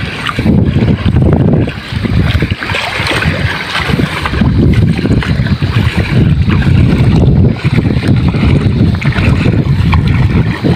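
Wind buffeting the microphone in uneven gusts, over water sloshing and splashing around feet wading through shallow sea water.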